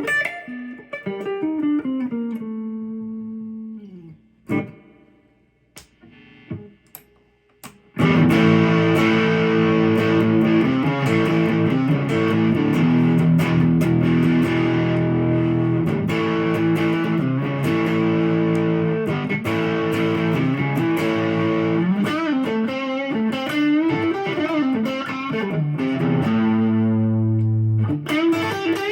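Ibanez Artist AR300 electric guitar playing single-note phrases with string bends, then a few sparse plucked notes. About eight seconds in, a loud, sustained passage of held notes and chords starts, with an overdriven tone.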